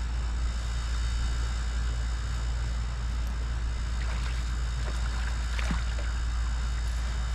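Strong wind rumbling on the microphone over steady water noise against a boat, with a few faint knocks.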